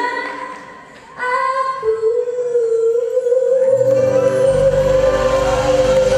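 Woman singing a live ballad into a microphone: a short phrase, then one long held note. The band's low accompaniment comes in under the note about four seconds in.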